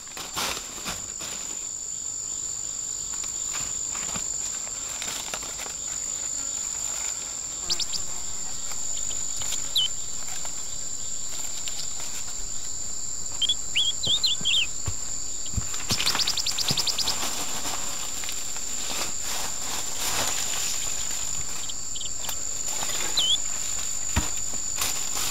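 Forest insects giving a steady, high-pitched drone throughout. Scattered light rustles and taps and a few short chirps sit on top of it.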